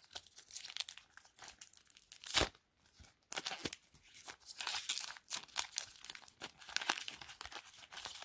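Trading card pack wrapper crinkling and tearing as the pack is opened by hand, in irregular crackles, with one sharp louder snap about two and a half seconds in.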